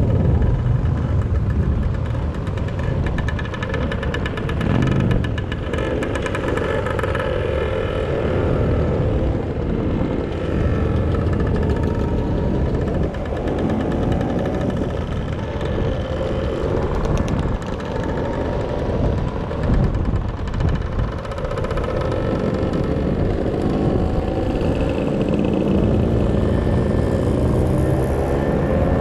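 Motor scooter engine running, its pitch rising and falling.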